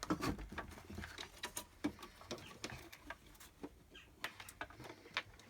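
Scattered light clicks and taps of metal parts and hand tools being handled while assembling an Ender 3 V2 3D printer, irregular and small.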